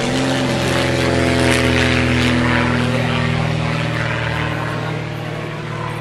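Small propeller airplane flying overhead, its engine and propeller droning steadily, the pitch sinking slightly and the sound fading a little as it passes.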